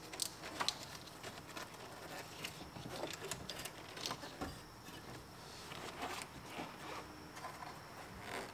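Faint, scattered light clicks and rustling from a wire being worked by hand through the plastic dash panels and ducting.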